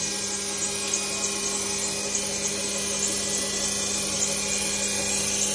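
A three-phase wind-turbine alternator spinning steadily on a test bench, giving a constant hum with a fast, evenly repeating high whine over it. It is turning at a speed that makes only about 22 volts, below the 27–28 volts needed to charge a 24-volt battery.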